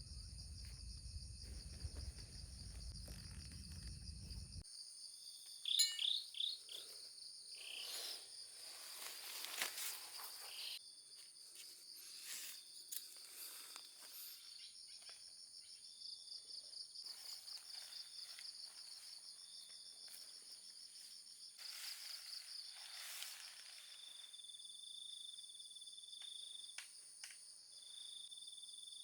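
Insects trilling in a steady, high-pitched chorus, with a few short bird chirps about six seconds in and scattered faint rustles and clicks. A low rumble stops about four seconds in, and near the end a high chirp repeats at short, even intervals.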